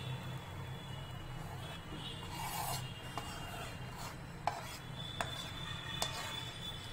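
A utensil stirring thick chocolate Oreo-biscuit cake batter in a steel cake tin, scraping and rubbing around the tin, with several light clicks of the utensil against the metal side in the second half. A steady low hum runs underneath.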